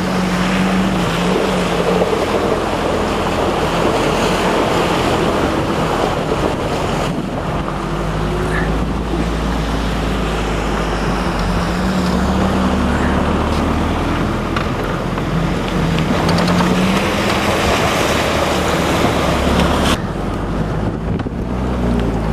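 Austin Champ's engine running under way over rough ground, its note rising and falling with the throttle, with wind buffeting the microphone.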